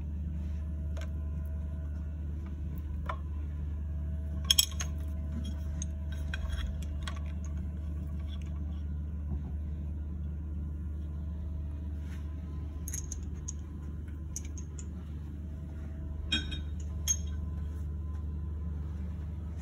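Scattered small metal clinks and taps as a bolt and tool are fitted through a metal propeller blade into the saildrive propeller hub, the sharpest one a few seconds in. A steady low hum runs underneath.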